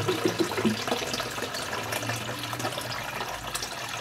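Tap water running into a plastic electric kettle through its open lid as it fills, a steady splashing flow.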